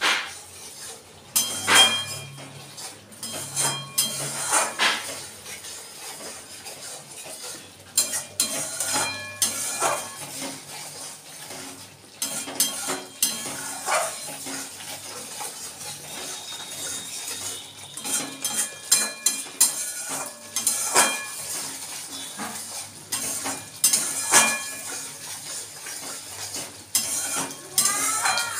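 Metal spatula scraping and clinking against a metal kadai as a thick masala is stirred, in irregular clusters of knocks every second or few. The masala is being cooked down (kasha) before the vegetables are added.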